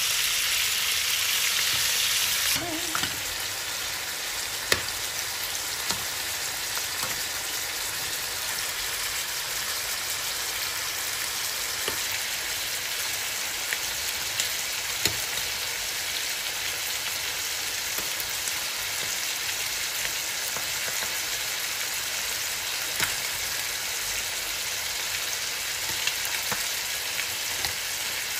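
Food frying in hot oil: a steady sizzle, louder for the first couple of seconds while chicken thighs are stirred in a wok, then softer and even, with a few light clicks.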